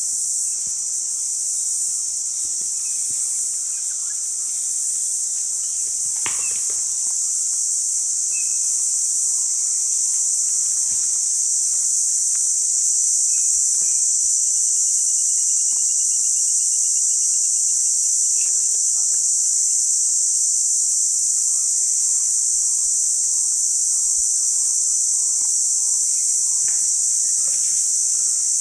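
Steady, loud chorus of insects in tropical bush, a continuous high-pitched buzz. It is broken about six seconds in by a single sharp click, and a faint, fast trill runs for a few seconds near the middle.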